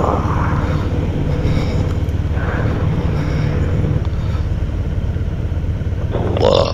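Motorcycle engines running at low speed, a steady low rumble.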